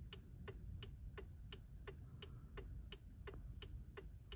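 Faint, steady ticking, about three ticks a second, over a low background rumble.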